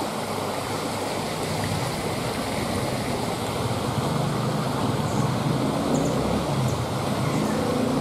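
Mountain stream water running steadily, an even rushing noise, with a low hum joining about halfway through.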